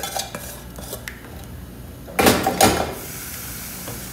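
Cookware clatter at an aluminium pot as cornmeal-and-water mixture is poured into boiling stock for polenta. Light clinks of the metal bowl against the pot come first, then two loud metal clanks against the pot a little past two seconds in, and then a steady hiss from the pot on the boil.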